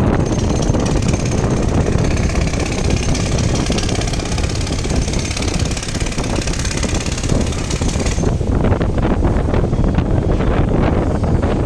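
Wind buffeting the microphone over a low rumble, with a rapid, hissing mechanical rattle that cuts off about eight seconds in.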